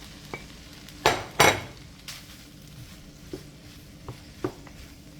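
Cooked chicken pieces going into a hot frying pan of spaghetti and vegetables: two loud bursts of sizzling about a second in, the second the louder. A few light clinks of a utensil against the pan follow.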